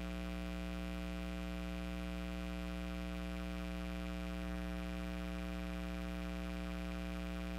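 Steady electrical hum: a low drone made of several fixed pitches that never rise or fall, with a faint tick about four and a half seconds in.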